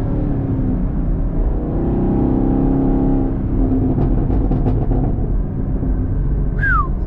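2021 Chevrolet Camaro SS's 6.2-litre V8 revving up under acceleration and easing off, then its exhaust crackling and popping in a quick run of pops on the overrun as the throttle closes. A short falling squeak sounds near the end.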